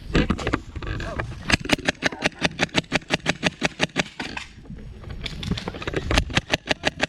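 Airsoft gun firing a rapid string of shots, about eight a second, for nearly three seconds, then a shorter string near the end.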